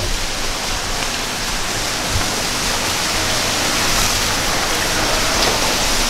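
Steady rush and splash of water falling into the shallow pools of a decorative water feature, growing slightly louder.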